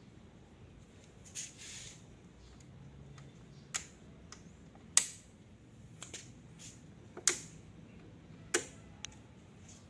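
Scattered sharp clicks and taps at irregular intervals, about half a dozen, with a short rustle about a second and a half in.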